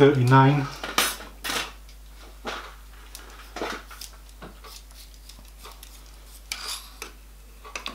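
Scattered metallic clicks and clinks of a dial caliper being handled and set against the metal wheel blank held in a lathe chuck.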